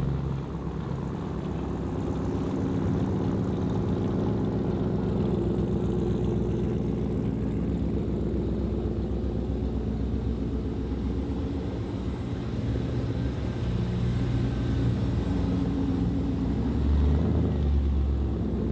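Engine idling steadily with a low, even rumble that grows a little louder near the end.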